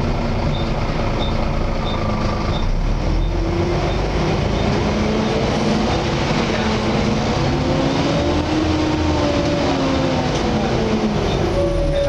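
Volvo B7TL double-decker bus heard from inside while it is moving. The engine runs under the loud vacuum-cleaner-like whine of its cooling fan, the 'hoover'. Several pitches rise a few seconds in, hold, and fall away near the end.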